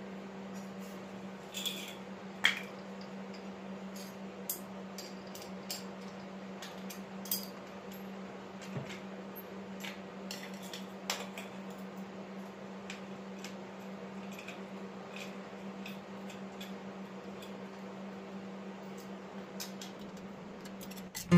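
Small loose metal parts, washers and bolts, clinking as they are picked up and set down on a concrete floor: scattered single clinks, the loudest about two and a half and seven seconds in. A steady low hum runs underneath.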